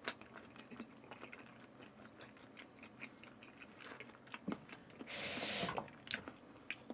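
Close-up chewing of a mouthful of raw salmon and noodles: soft, scattered wet mouth clicks, with a short hiss about five seconds in.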